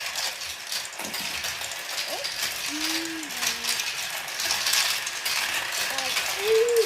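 Marbles rolling and clattering down a plastic marble run toy: a steady, dense stream of small clicks and rattles.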